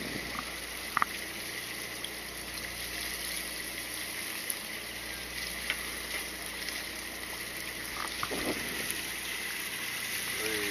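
Sea water washing and splashing steadily around a fishing boat, over a faint low hum, with a couple of short clicks about a second in and near the end.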